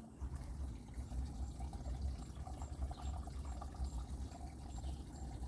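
Faint running water over a low, steady rumble.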